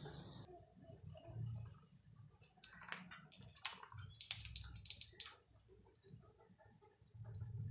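A quick run of sharp clicks and crackles, bunched between about two and five seconds in, with a few lone ticks after.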